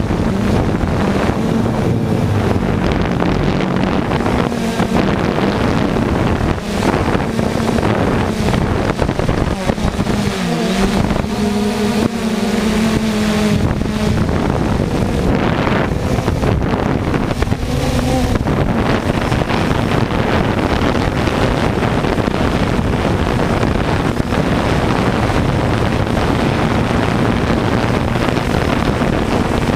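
Multirotor drone's motors and propellers buzzing steadily, recorded by the drone's own onboard camera, with wind rushing over its microphone. The motor pitch wavers and dips a few times near the middle.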